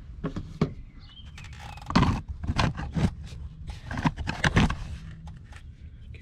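Plastic clicks and knocks of a headlight wire-harness connector and retaining clip being pushed and pried loose by hand, a handful of sharp strikes with the loudest about two seconds in.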